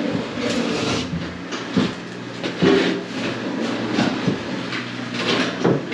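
Heavy stone resin shower tray being lowered onto a concrete floor and shuffled into place, giving a series of knocks and scrapes about once a second. A steady low hum runs underneath.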